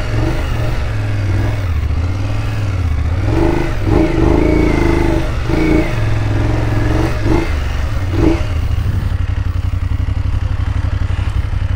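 Off-road motorcycle engine running, its revs rising and falling through the first half and steadier near the end.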